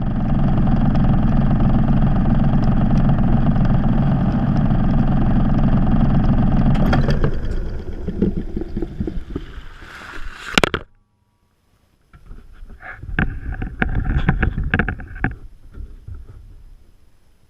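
Washing machine running, heard from inside the drum through a GoPro's waterproof dive housing: a loud steady hum and churning that dies down about seven seconds in. A sharp knock comes near the middle, then after a brief silence a run of irregular knocking and clattering that fades.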